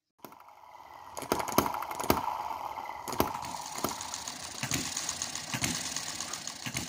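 A small model engine running, clattering, with irregular sharp knocks and a faint steady tone through the first few seconds.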